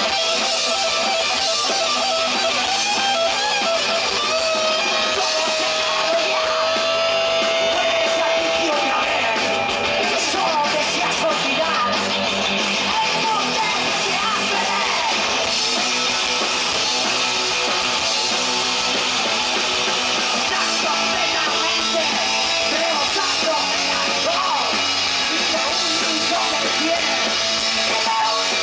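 Live punk rock band playing: distorted electric guitars over bass and drums in a dense, loud mix. A single held note stands out above the mix about four seconds in and lasts some five seconds.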